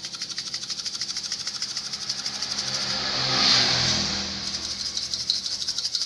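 Granulated sugar mixed with insecticide rattling inside a small capped plastic bottle shaken rapidly by hand, several shakes a second. A little past halfway the rattle swells into a louder, smoother swish, then goes back to even shaking.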